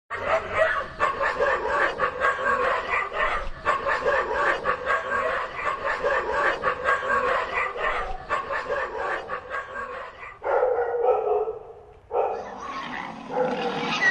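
A dense chorus of overlapping animal calls, pitched and repeating several times a second. About ten seconds in the sound changes, dips briefly near twelve seconds, and a noisier sound takes over.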